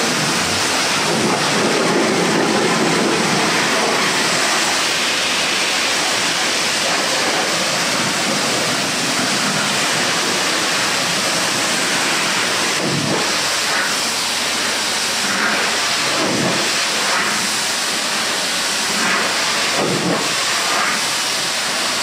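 Car wash pressure-washer wand spraying a high-pressure jet of water onto a car's body and glass: a steady loud hiss, with brief shifts now and then.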